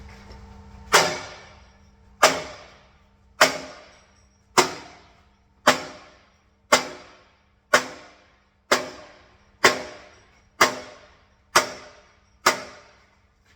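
Twelve heavy hammer blows on steel, about one a second and slightly quickening, each ringing briefly. They are knocking a new front plate into place on a repaired bucket, tight against the bucket before welding.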